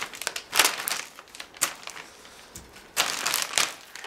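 Clear plastic poly bag crinkling in irregular bursts as it is handled with a plate carrier inside, loudest about half a second in and again around three seconds in.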